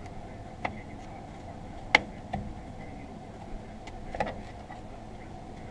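A screwdriver working against the wheel cylinder and shoes of a drum brake, making a handful of sharp clicks and knocks. The loudest comes about two seconds in.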